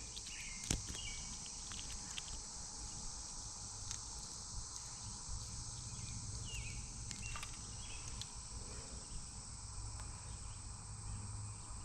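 Steady high chorus of insects, crickets among them, with a few short faint chirps and light clicks over it.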